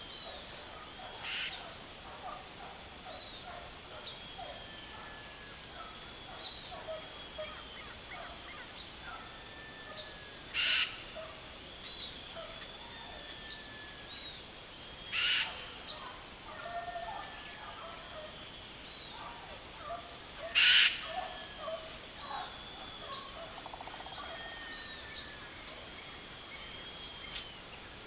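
Many small birds chirping and whistling, blue-black grassquits among them, over a steady high insect hum. Three loud, short, buzzy calls stand out, about five seconds apart.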